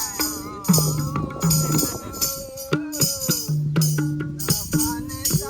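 Music playing: a melody over held bass notes that change every half second or so, with a rhythmic high jingle like a shaker or tambourine.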